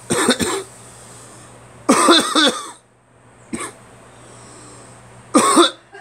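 A person coughing in four bouts, the second the longest and the third a single short cough; the cough brings nothing up, and the cougher puts it down to a sinus infection.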